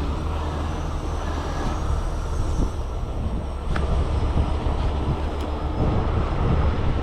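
Heavy tow truck's diesel engine running steadily, a low rumble, with a single sharp click about four seconds in.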